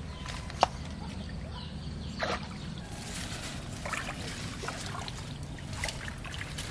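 Hands splashing and sloshing in shallow pond water among plants as a fish trap is felt for and pulled free, with a sharp click about half a second in and scattered softer knocks and trickles after.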